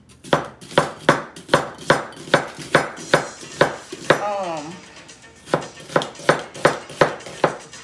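Chef's knife chopping an onion on a cutting board: a steady run of sharp knife strikes, about two or three a second, with a break of about a second partway through.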